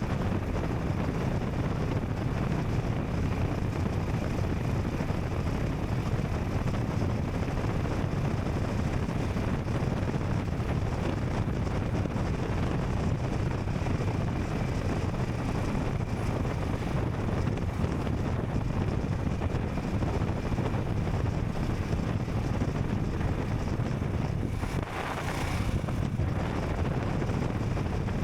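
Royal Enfield Scram 440's single-cylinder engine running steadily under way, with wind noise on the microphone. About three seconds before the end the engine's rumble dips briefly while a hiss rises.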